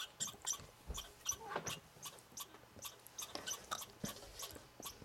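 Red squirrel making faint, irregular clicks and short high squeaks, several a second, that sound like a squeaky toy.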